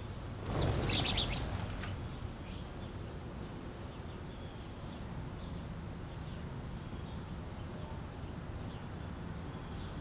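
A small flock of small birds flushing together in a brief flurry of wingbeats about half a second in, followed by faint scattered chirps over steady outdoor background noise.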